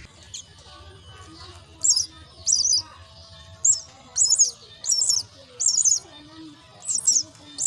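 Myna chicks giving begging calls: a run of short, high-pitched calls, about two a second, starting about two seconds in.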